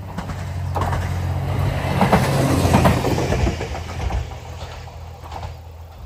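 JR West DEC700 diesel-electric railcar passing at speed. A steady low engine hum swells to its loudest a couple of seconds in, then fades as it moves away. Sharp clicks from the wheels crossing rail joints come several times along the way.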